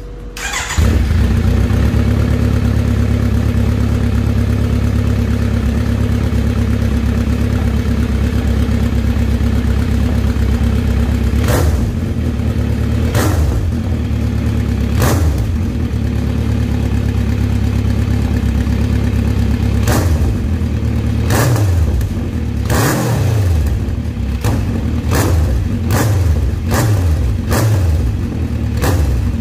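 Kawasaki Z900RS inline-four with a Delkevic aftermarket exhaust, starting up about a second in and then idling steadily. It is revved in sharp throttle blips, spaced out at first, with one longer rev in the middle and a quick run of blips near the end.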